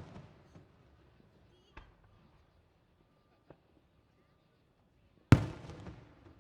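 Aerial fireworks bursting. The echoing tail of one bang fades, two small pops follow, and then a loud bang about five seconds in trails off into crackling.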